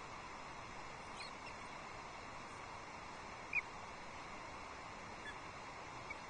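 A few short, high bird chirps, one louder and sharper about halfway through, over a steady background hiss.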